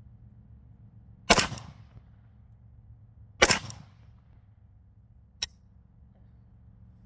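Two single shots from an AK-pattern rifle, about two seconds apart, each with a short echoing tail. A much fainter sharp click follows about two seconds after the second shot.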